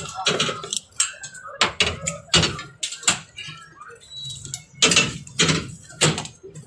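Phone microphone knocked and rubbed against clothing: a string of irregular thumps and scrapes, with a few short bits of voice among them.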